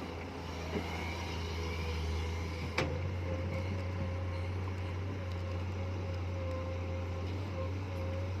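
Komatsu PC210 excavator's diesel engine running steadily, with a steady whine over the hum and a single sharp click about three seconds in.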